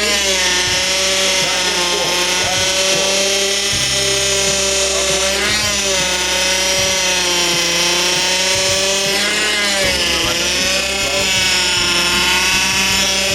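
Honda Accord power steering pump whining with the engine running, the pitch dipping and rising again twice as the steering is worked. The whine is the sign of a pump starved of fluid, with the reservoir still low.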